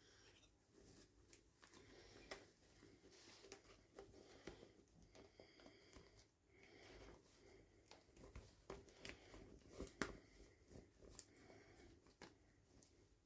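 Faint hands-on handling of toy packaging: scattered small clicks, taps and rustles, with one sharper click about ten seconds in.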